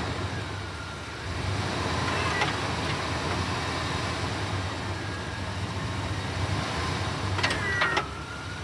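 Old plow truck's engine idling steadily, with a few sharp clicks near the end.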